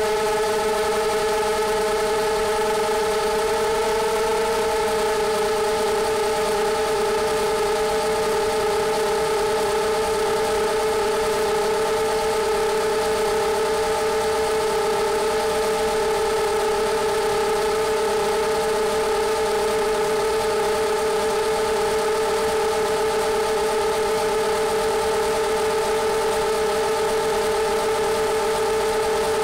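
FPV quadcopter's brushless motors and propellers whining steadily, one droning tone with several overtones; the pitch dips slightly about four to six seconds in.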